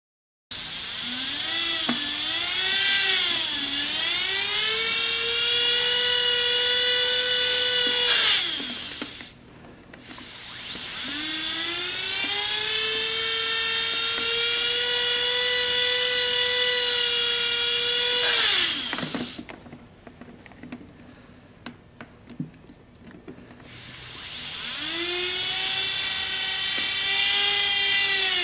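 Dental handpiece grinding a mandibular impression tray, its motor whining at a steady high pitch. It runs three times, each run spinning up, holding speed and then winding down, with quieter pauses between.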